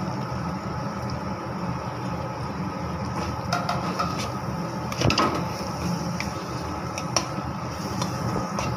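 Steel spatula stirring and scraping through chunks of fried potato and masala in a kadai, with a few knocks against the pan, the loudest about five seconds in, over a steady low hum.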